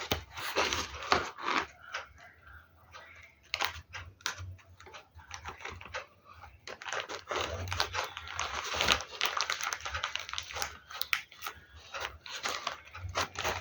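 Paper rustling and crinkling as it is handled and pressed, with many small clicks and taps, busiest in the second half.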